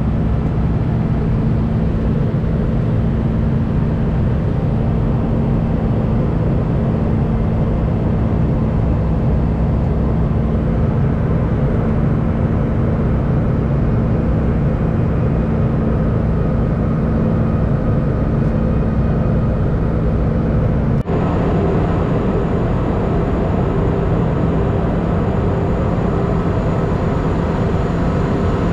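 Airbus A319 cabin noise in flight, heard from a window seat: the steady roar of the engines and rushing air, with a low steady hum. A short click comes about two-thirds of the way through, and after it the hum's tones shift slightly.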